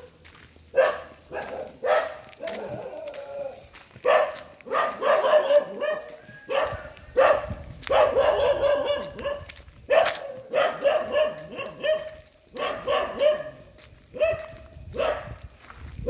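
A dog barking over and over, short sharp barks about one to two a second without a break.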